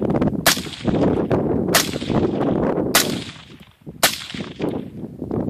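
Four suppressed 5.56 rifle shots from a Daniel Defense M4 fitted with a YHM Phantom QD suppressor, fired a little over a second apart. Each is a sharp crack followed by a long rolling echo off the surrounding valley; suppressed but not completely silent.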